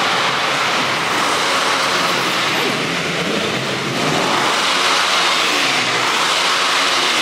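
Car engines running in an underground parking garage, a steady echoing rumble and hiss of traffic with some engine pitch rising and falling in the second half.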